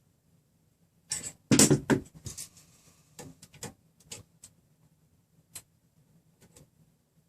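Hands working small hardware: a few sharp clicks and knocks, loudest in a short cluster about one and a half seconds in, then scattered single clicks.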